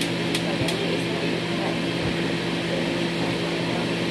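Steady mechanical hum from a room appliance, with a few light clicks in the first second as plastic spoons are handled.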